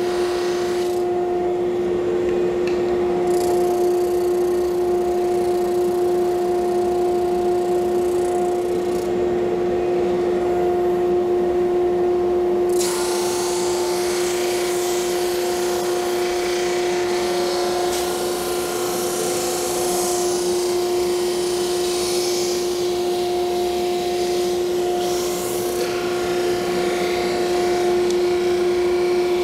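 Drum sander running steadily with a constant motor hum. About halfway in, a louder hiss starts as hardwood veneer is fed through and sanded down toward thickness.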